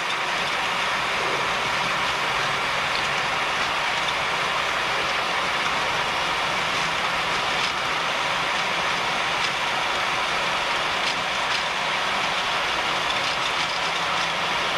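Boeing 737 on its takeoff roll, heard from the cockpit: the engines at takeoff thrust and the rush of the accelerating aircraft make a loud, steady roar, with a few faint knocks near the end.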